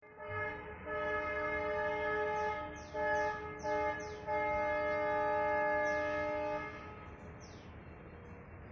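WDP4B diesel locomotive's multi-tone horn sounding five blasts: a short one, a long one of about two seconds, two short ones, and a final long one of about two and a half seconds that stops near the end. It is honking after the alarm chain has been pulled on the train.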